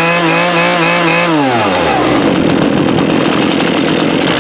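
Poulan Pro 42cc two-stroke chainsaw engine revved up, held at high speed with its pitch wavering for about a second and a half, then dropping back to a rough idle. The owner calls the uneven note "tumbling" while he sets the carburettor.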